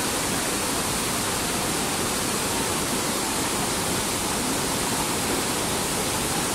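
River rapids: whitewater rushing over and around rocks in a steady, unbroken rush of water.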